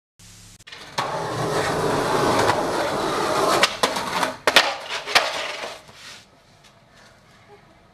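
Skateboard wheels rolling on smooth concrete, then the board grinding a low bench and several sharp clacks as the skater falls and the board hits the ground. The rolling starts about a second in; the clacks come about halfway through, and it dies away near the end.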